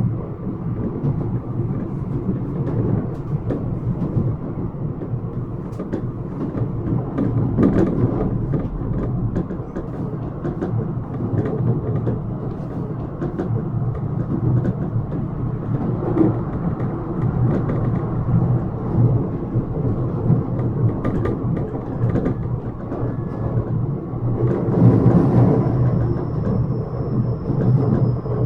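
Yokohama Minatomirai Railway Y000 series electric train running between stations, heard from inside the car: a steady rumble of wheels on rail with frequent clicks and knocks. Near the end the rumble swells and a faint high whine starts, slowly falling in pitch.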